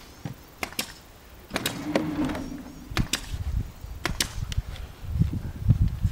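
Scattered sharp knocks and clicks on timber as work goes on around a large log being set on the foundation, with heavy low thudding toward the end.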